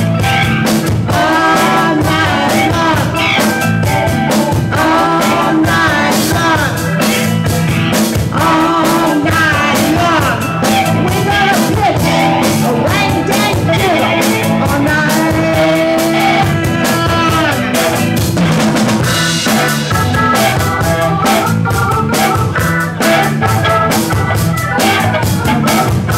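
Live blues band playing: electric guitar over drum kit, with the lead line's notes bending and wavering.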